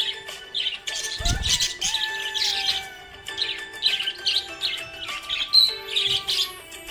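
Small pet parrots chirping in quick, busy runs over background music with held tones. A low thud sounds about a second in.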